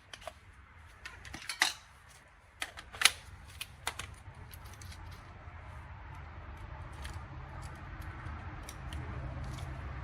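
Sharp clicks and clatter of hard parts being handled, loudest in the first four seconds, then a steady low hum that slowly grows louder with scattered small clicks over it.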